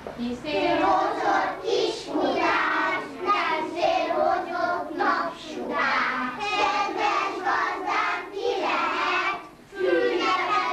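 A group of young children singing a song together, with a short pause about nine and a half seconds in.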